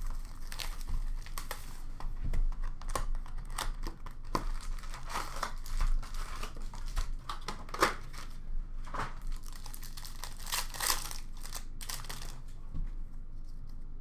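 Trading-card pack wrappers from a Panini Phoenix H2 football box crinkling and tearing as the box is opened and the packs are ripped open, in quick irregular crackles that die away shortly before the end.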